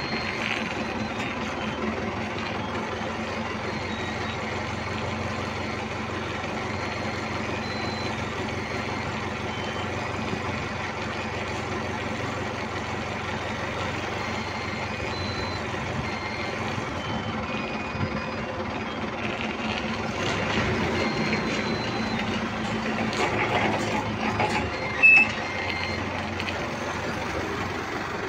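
Forklift engine running steadily under load, with short high electronic beeps coming and going and one louder sharp beep near the end.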